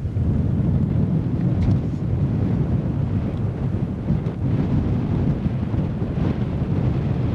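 Steady low rumble of wind buffeting the camcorder microphone aboard a moving boat.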